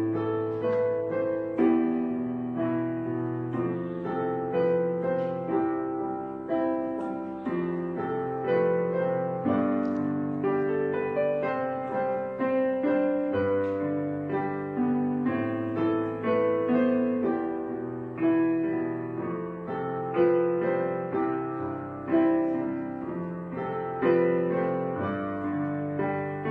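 Background piano music: notes struck and left to ring over a low bass line.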